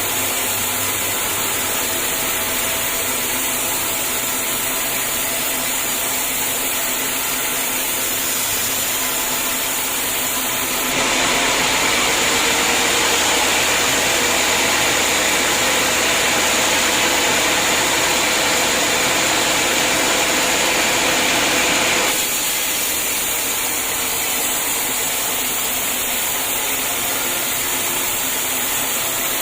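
Homemade sawmill running steadily. About eleven seconds in, the saw cuts into a hard acacia log and grows louder and hissier for roughly eleven seconds, then goes back to running free.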